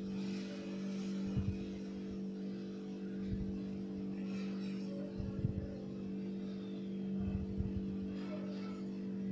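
Electric hand mixer running steadily, its beaters whipping eggs and sugar in a steel bowl, with a few low knocks along the way.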